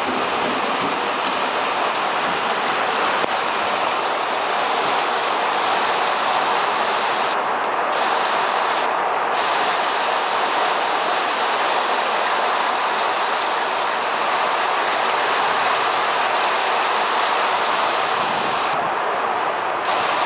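Heavy thunderstorm rain pouring down with wind, a loud steady rush of noise.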